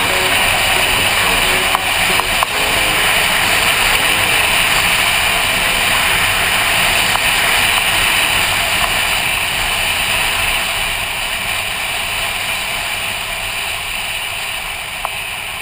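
Steady rush of wind and road noise from a touring motorcycle riding at speed, engine and tyres under the wind. The noise eases gradually over the last few seconds.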